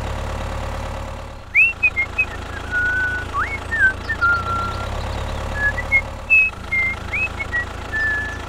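Tractor engine running steadily with a low rumble. From about a second and a half in, someone whistles a short tune over it, in held notes with quick slides between them.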